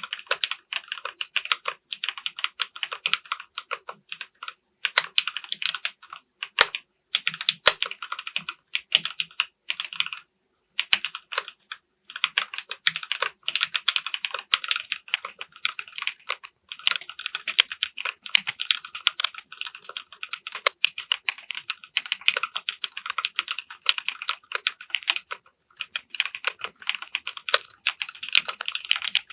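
Fast continuous typing on a mechanical keyboard fitted with HMX Sonja linear switches, a rapid stream of key clacks broken by brief pauses about ten and twelve seconds in.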